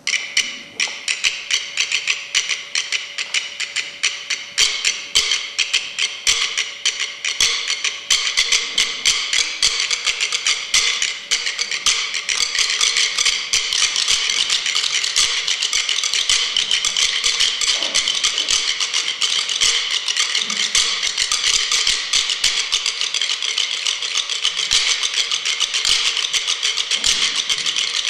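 A percussion ensemble playing rhythmic sharp wooden clicks and taps, with sticks striking wooden stools. It starts suddenly with separate strikes, then about twelve seconds in the hits crowd together into a dense, steady patter.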